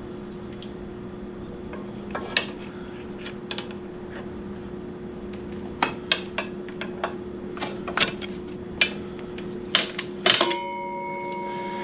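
Metal tools and brake caliper parts clinking and knocking as they are handled, a scattered series of sharp clanks that grows busier partway through, the loudest one near the end, over a steady low hum.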